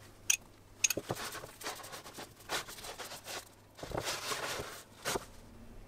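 A metal spoon clinks sharply twice, then hands pat and rub the oiled coil of pie dough in a metal baking tray, making soft, irregular scraping and rustling, loudest about four seconds in.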